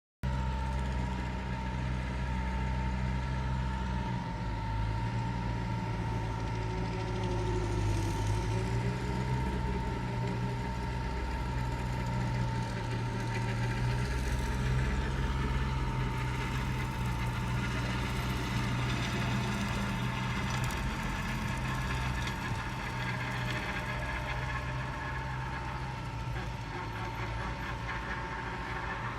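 Tractor engine running steadily with a low, even drone that shifts slightly every few seconds, and a steady thin whine above it.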